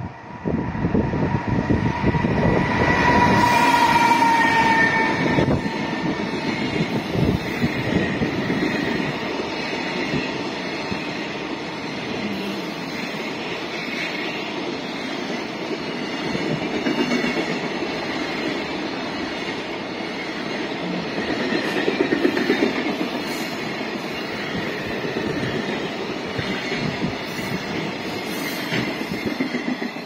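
Electric freight train passing close by: the locomotive and then a long string of container wagons, the wheels rumbling and clattering on the rails. A high whine about two seconds in falls slightly in pitch and fades out a few seconds later.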